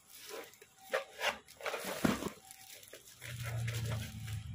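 Plastic packaging and cardboard rustling and crinkling in irregular bursts as a wrapped package is pulled out of a cardboard box. A low steady hum comes in about three seconds in.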